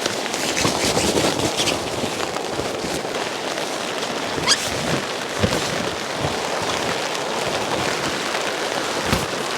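Rain falling steadily on a tarp shelter, with a few sharper knocks standing out now and then.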